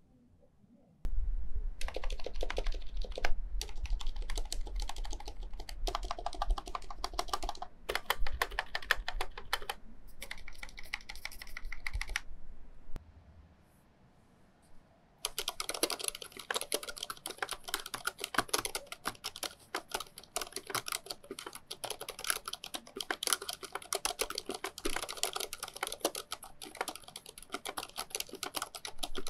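Typing on a Thinkway Toche RGB mechanical keyboard with Cherry MX silent red switches and thick sound-absorbing foam: quick runs of muted keystrokes from about a second in, a pause of about two seconds around the middle, then steady, denser typing.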